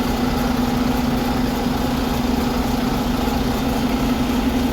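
Volvo bus's diesel engine running steadily at idle, a constant hum.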